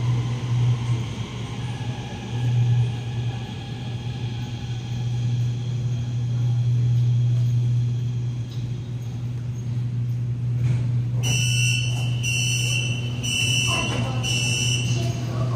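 Guangzhou Metro Line 21 train standing at the platform with a steady low hum. About eleven seconds in, the train and platform screen doors open to a run of about five electronic warning beeps.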